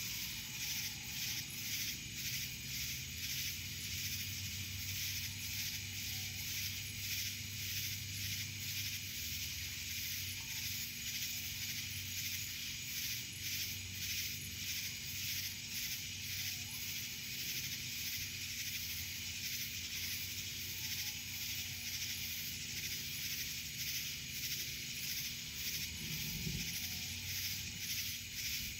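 Chorus of night insects such as cicadas: a dense, high-pitched pulsing drone, a few pulses a second.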